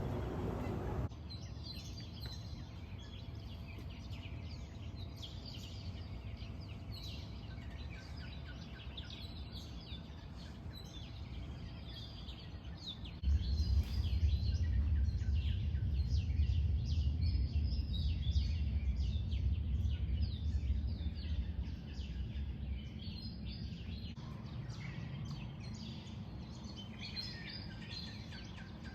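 Many birds chirping and singing at once, a dense chorus of short calls over a low background rumble. The rumble gets louder about halfway through and eases again a few seconds before the end.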